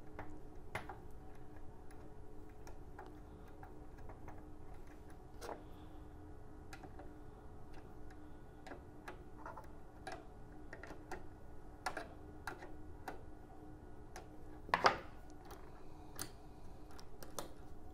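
Faint, scattered clicks and taps of metal coaxial connectors and a wrench being worked onto the front-panel ports of a vector network analyzer, with one louder knock near the end. A steady low hum runs underneath.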